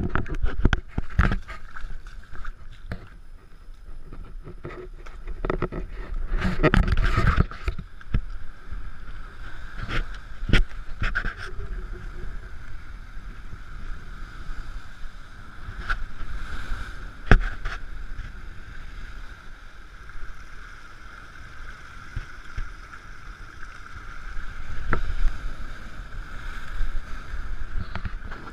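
Ocean surf breaking and washing over rocks, with rushing noise that swells twice and wind on the microphone. Scattered sharp knocks occur throughout.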